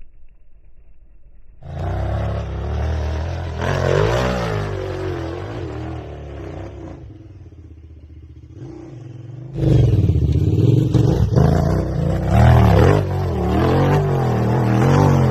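KTM 990 Adventure's V-twin engine revving, its pitch rising and falling, starting about two seconds in. It fades away around the middle, then comes back suddenly and louder with more revs.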